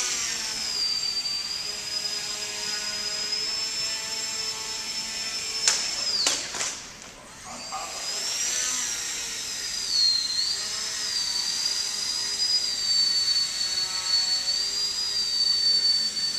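Small electric motor and folding propeller of a foam RC plane, whining high and rising and falling in pitch with the throttle. About six seconds in, a sharp click and a couple of knocks come as the plane hits the floor. The whine cuts out for about a second, then comes back as the motor is throttled up again.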